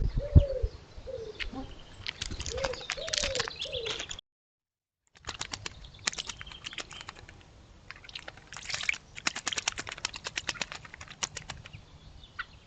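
Birds at a pond: a pigeon cooing in short rising-and-falling notes over the first four seconds, then, after the sound cuts out for about a second, a long run of quick dry clicks and rustles, thickest in the second half, as birds move and flap.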